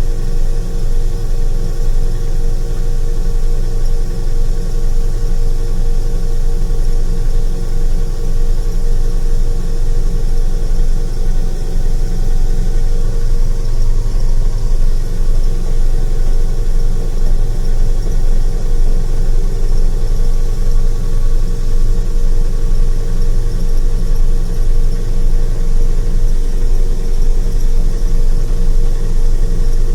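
Farm tractor's diesel engine running steadily under load, driving a grain cart's unloading auger.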